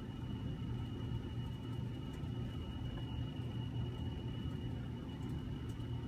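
Steady low electrical hum with a faint, thin high-pitched whine above it: room tone, with a few faint ticks.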